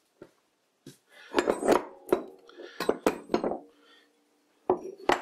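Heavy metal lathe tool-rest parts being handled and set down on a metal workbench: a run of clanks and knocks, several of them ringing briefly, then a short pause before a few more clanks near the end.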